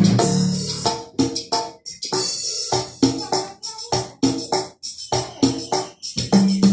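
Cumbia loop played on a Roland XP-30 synthesizer: an even percussion rhythm with tambourine. The bass drops out about a second in and comes back near the end.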